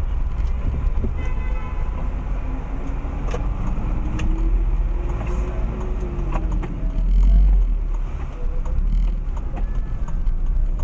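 Inside a moving car's cabin: steady low engine and road rumble, with an engine tone that slowly rises over a few seconds and drops away about seven seconds in, plus a few light knocks.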